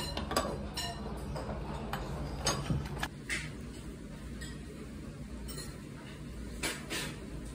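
Scattered light clinks of tableware, like dishes and cutlery being handled, over a low steady background hum.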